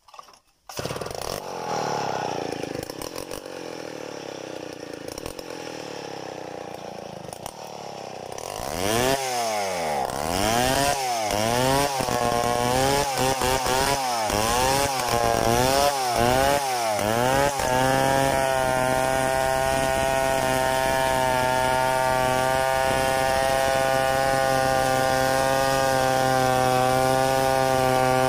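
Stihl 070 two-stroke chainsaw coming in about a second in and running unevenly, then revved up and down about once a second, and from about halfway held at a steady high pitch while ripping lengthwise through a mahogany log to mill a board.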